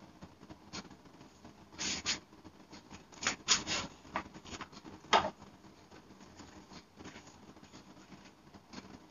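Clothes on hangers being hung back on a wardrobe rail: short fabric rustles with the clicks and scrapes of hangers. The loudest come about two, three and a half and five seconds in.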